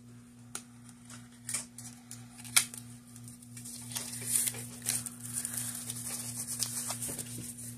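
Small clicks and taps, then rustling and crinkling of cosmetic packaging being handled as a highlighter is unboxed, over a steady low electrical hum.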